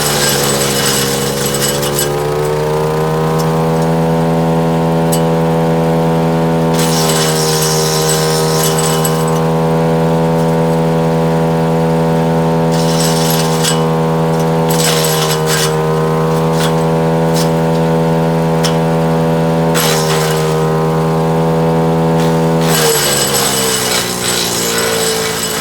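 Split-Fire 4090 wood chipper's engine running steadily under load as cherry limbs are fed through, with bursts of crackling, chipping noise coming and going several times over the engine. Near the end the engine note drops as it bogs down.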